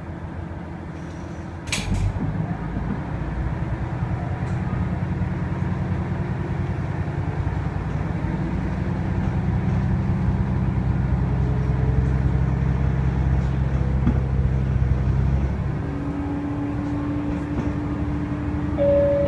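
Diesel railcar's engine running under power, heard from the driver's cab. A sharp clunk comes about two seconds in, after which the engine grows louder; it eases off about fifteen seconds in.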